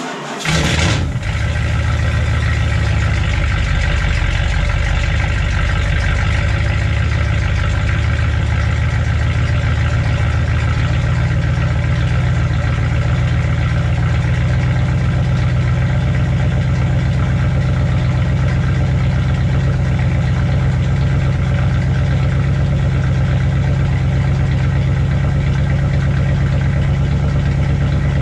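1984 Dodge D150 pickup engine cold-started at 25 degrees after sitting for months: a short crank, it catches and flares within the first second, then settles into a steady idle.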